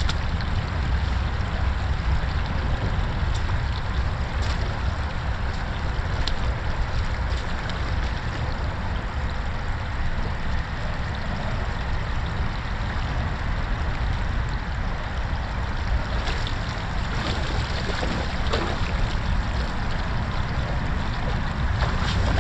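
Shallow creek water running and trickling over a debris dam, with rubber boots wading and splashing through it near the end, over a steady low rumble.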